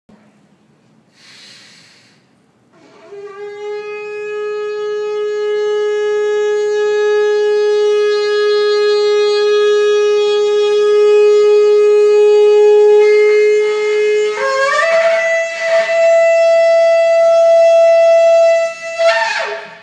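A shofar blown in one long blast: a steady low note held for about eleven seconds, then a jump up to a higher note held for about four seconds, ending with a brief upward sweep.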